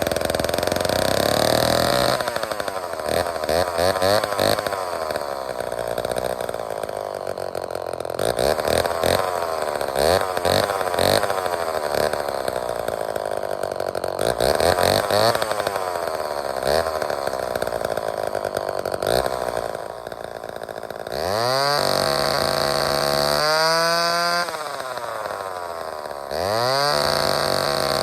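Vintage Lombard chainsaw's two-stroke engine running, its revs rising and falling unevenly for the first part. Later it is twice revved up to a steady high pitch, held a couple of seconds each time, then let back down.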